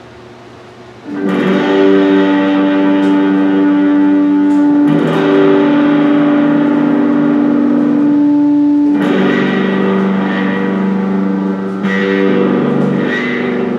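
Electric guitar played through an amplifier: chords are strummed and left to ring, with a new chord every three to four seconds. A faint steady amplifier hum comes before the first chord. This is a playing test of the guitar with its newly installed pickups.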